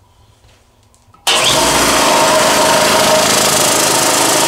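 Small PrimeAir electric air compressor switched on about a second in and running steadily and loudly, its motor and pump charging the tank. It is being run to test a newly replaced one-way check valve.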